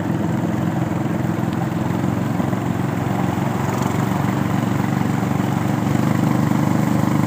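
Small boat engine running steadily as the wooden boat motors along the river, getting a little louder near the end.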